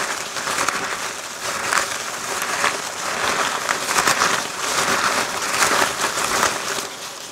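Small folded paper slips rustling and shuffling inside a sheer organza drawstring bag as the bag is shaken and turned by hand, in repeated surges that die away near the end.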